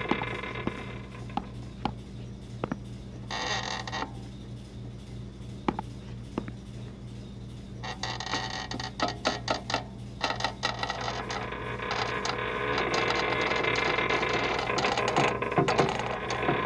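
Metal folding chair clicking and creaking as it is set down and stood on, with a quick flurry of clicks about eight seconds in. Under it runs a steady low hum and faint background music.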